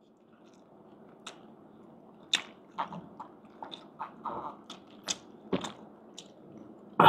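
Close-miked chewing and biting of food during a mukbang, with irregular small clicks and crackles from the mouth; a louder short burst near the end.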